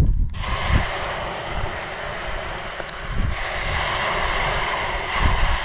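Water poured into a new, empty cast-iron Dutch oven that has been heating over a campfire, hitting the hot iron with a loud hiss and sizzle as it flashes to steam. The hiss starts suddenly and carries on, easing a little about three seconds in.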